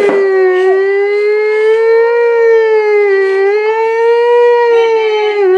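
Toy siren wailing: one continuous, loud electronic siren tone that wavers slowly up and down in pitch, with a brief dip near the end.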